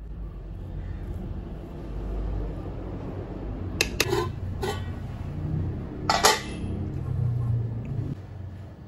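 Steel spoon stirring cooked rice in a pressure cooker, with a few sharp clinks of metal on the pot's rim, the loudest about six seconds in, over a steady low hum.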